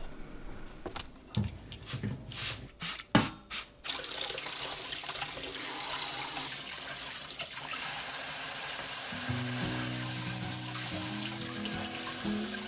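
A few sharp clacks, then a kitchen tap running steadily into a bowl in a stainless steel sink as vegetables are rinsed by hand. Soft background music comes in at about nine seconds.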